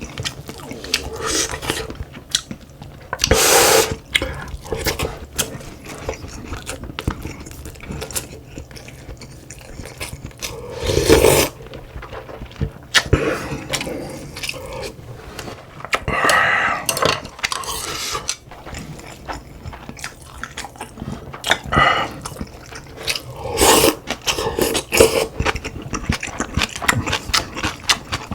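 Close-up sounds of a person eating: chewing, slurping stew broth in several louder noisy gulps, and many sharp clicks of spoon and chopsticks against a bowl.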